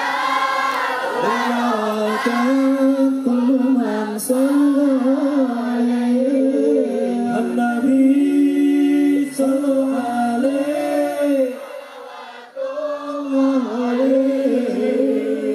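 Voices singing a sholawat together, a slow devotional melody held on long sliding notes, briefly quieter about twelve seconds in before the singing picks up again.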